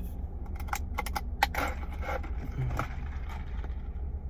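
Steady low hum of a car cabin, with a quick run of sharp clicks and rattles from something being handled about a second in, and a soft thud a little later.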